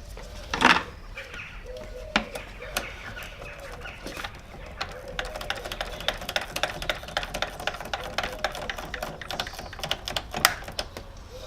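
Fast, irregular clicking of a socket ratchet tightening the clamp bolt on a car battery's negative terminal, with a couple of louder metallic knocks. The clicking is densest through the middle and second half.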